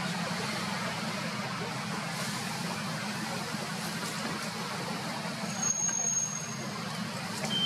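Steady rumble of motor-vehicle traffic or an engine running, with a brief thin high-pitched squeal about six seconds in.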